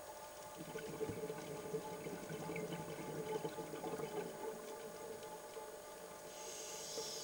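Underwater sound of water gurgling and sloshing in a sea surge, over a faint steady hum, with a brief hiss near the end.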